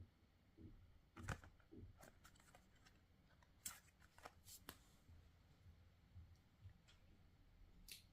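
Faint handling of product packaging: scattered rustles and light clicks of cardboard and plastic being handled, the sharpest about a second in and a few more around four to five seconds in.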